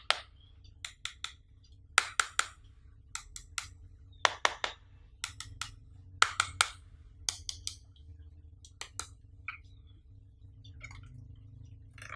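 Sharp taps and clicks of fingers handling a Xiaomi wireless-charging power bank, often in quick groups of two or three, with fainter ones over the last few seconds. A faint low hum runs underneath.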